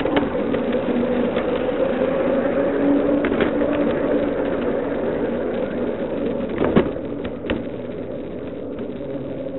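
Onboard sound of a 5-inch gauge Maxitrak Planet battery-electric miniature locomotive running along steel track: a steady rumble of wheels on rail with a faint motor hum. Sharp clicks come as the wheels cross the gaps between the loose track panels, the loudest about seven seconds in.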